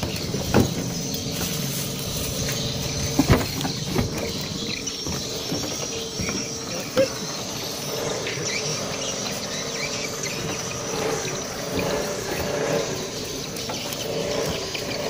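A few sharp knocks on a wooden boat's deck and hull as people step aboard, over steady outdoor background noise. The knocks come about half a second in, twice around three seconds in, and again at about four and seven seconds in.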